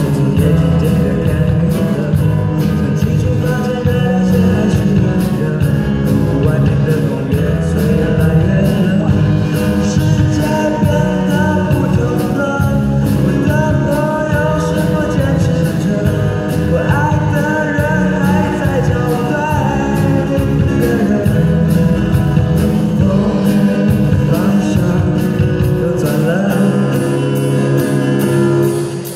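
A live band plays a pop-rock ballad: a male singer over acoustic guitar, electric bass, keyboard and drums, with cymbal ticks keeping time. The band drops briefly near the end.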